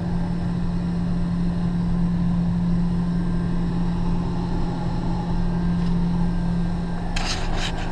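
Combine harvester running steadily while picking up a canola swath: an even machine drone with a strong constant low hum. A short burst of higher hiss comes near the end.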